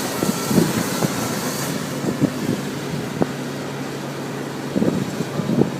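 A heavy crane vehicle's engine running, with scattered knocks and clanks; a low steady hum sets in about two seconds in.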